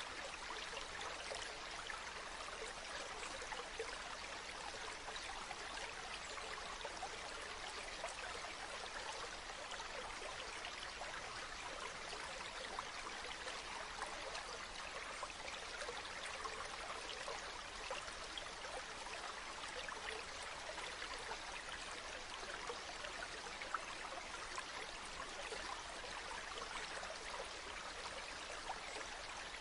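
Mountain stream running over rocks: a steady rush of water with small splashes and trickles throughout.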